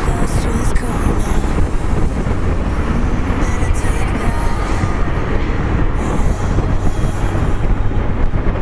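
Motorcycle riding at steady highway speed: the engine's drone mixed with steady road and wind noise.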